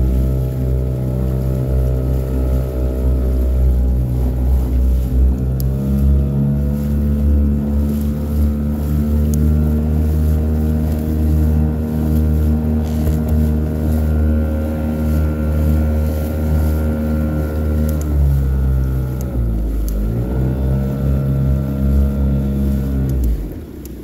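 Small outboard motor driving a fishing kayak under way, running steadily. It speeds up a few seconds in, dips and picks up again about twenty seconds in, then throttles back just before the end.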